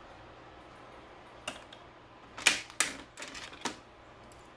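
Cooked crab shell being cracked and snapped apart by hand while the meat is picked out: about five sharp cracks in the middle stretch, the loudest a little past halfway.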